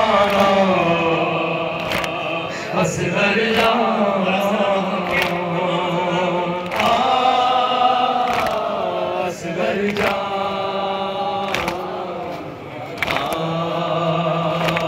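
Male voices chanting a noha, a Shia lament, through microphones and a loudspeaker, in long held, wavering lines. Sharp slaps recur about every second and a half, the beat of matam (chest-beating).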